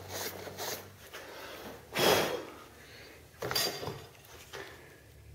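A brush scrubbing a freshly TIG-welded steel bead. A couple of quick strokes in the first second are followed by a few slower, louder swipes, the loudest about two seconds in.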